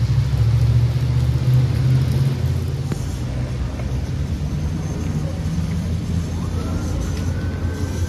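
Low, steady rumble of motor traffic on a wet street, loudest in the first two seconds.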